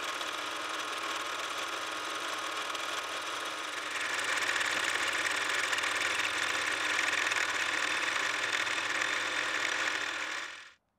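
Milling machine running with a homemade fly cutter taking a light facing cut across a brass plate. The steady cutting noise gets louder and brighter about four seconds in, then cuts off suddenly just before the end.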